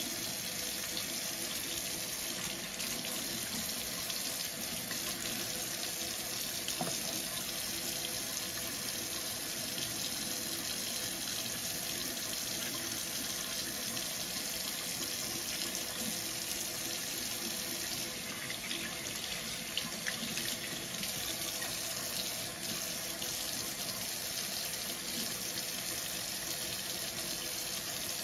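Water running steadily from a kitchen faucet into a stainless steel sink, splashing over hands and a paintbrush held in the stream.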